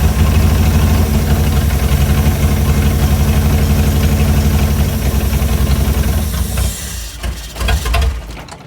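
Chrysler Hemi 265 straight-six idling steadily while its idle is being set, then running unevenly and cutting out about seven seconds in.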